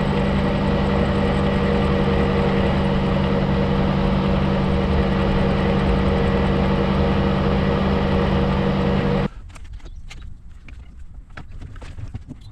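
A metal lathe running with a steady hum and whine, most likely drilling or facing steel stock. The sound cuts off abruptly about nine seconds in, and faint clicks and knocks follow.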